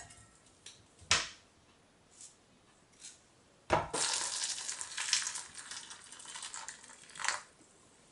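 A few small tomatoes dropping into a stainless steel bowl, each with a knock, the loudest about a second in. Then hot water poured from a kettle splashing into the metal bowl over them for about four seconds, blanching the tomatoes so their skins can be peeled.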